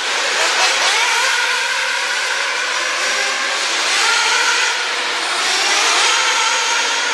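Several radio-controlled off-road racing cars running together, their small motors revving up and down in a high-pitched whine as they accelerate and brake around the track.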